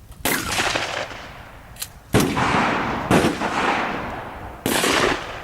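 Gunshots: four loud shots spread over about five seconds, each trailing off in an echo, with a fainter sharp pop between the first two.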